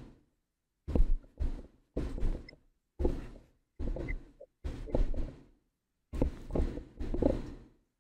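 A run of short, dull thumps or knocks at uneven intervals, each fading within about half a second, with dead silence between them.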